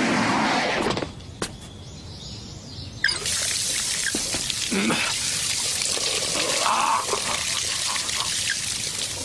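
A steady, water-like hiss starts suddenly about three seconds in and holds, with a few short high chirps over it; before it, a few soft clicks.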